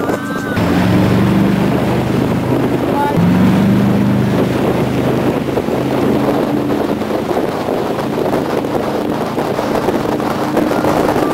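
Tow boat's engine running at speed, a steady low hum that rises briefly in pitch about three seconds in, over wind buffeting the microphone and the rush of the wake.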